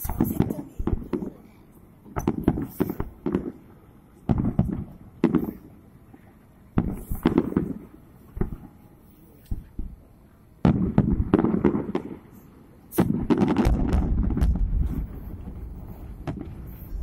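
Aerial fireworks shells bursting, a string of bangs about a second apart. They run together into a dense barrage twice, the second with a deep rumble in its last few seconds.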